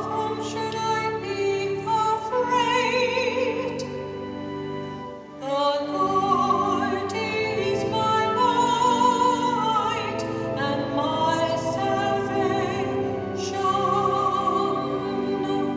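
A solo cantor singing the responsorial psalm of a funeral Mass, held notes with a wide vibrato, over sustained keyboard chords, with a short break between phrases about five seconds in.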